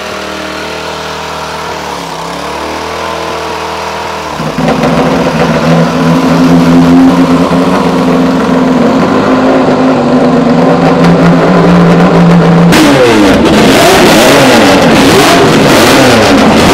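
A small petrol engine on a roller starter runs steadily. About four and a half seconds in, a classic racing motorcycle engine fires and runs stupidly loud at a steady speed. From about twelve seconds in it is blipped, revving up and down over and over.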